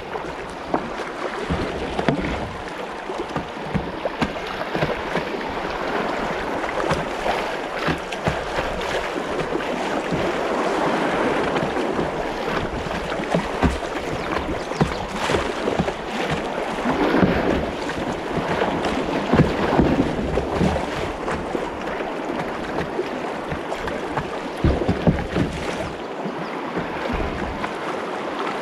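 Shallow river riffle rushing and splashing around a plastic kayak, with frequent short splashes and knocks of water against the hull, heard close from a boat-mounted camera.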